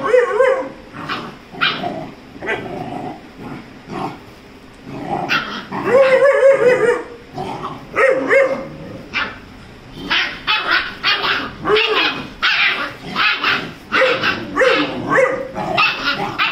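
Dogs barking and yipping while a Rajapalayam puppy and a Labrador play-fight. The barks come singly at first, then quickly, about two a second, over the last six seconds.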